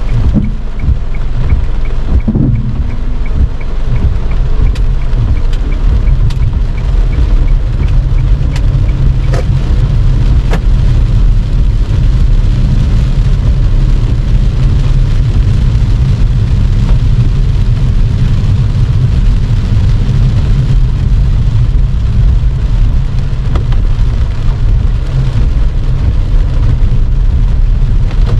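Heavy rain falling on a car's roof and windscreen, heard from inside the cabin, over a steady low rumble of the car and its tyres on the wet road. A light, regular ticking runs through the first nine seconds or so.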